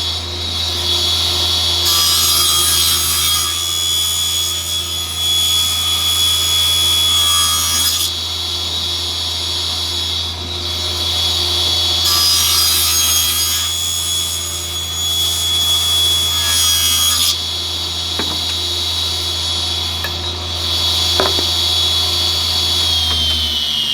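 Small table saw running with a steady motor whine while its blade rips thin strips of wood. The cuts come twice, from about two to eight seconds in and again from about twelve to seventeen seconds in, each adding a louder rasping sound over the running motor.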